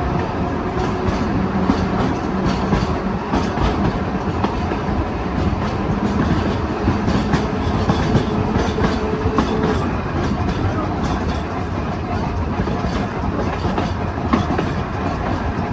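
Double-truck Birney streetcar, built 1926 by the St. Louis Car Company, running along the track as heard from aboard: a steady rumble of the wheels, with irregular clicks as they pass over rail joints and a faint hum that fades about two-thirds of the way through.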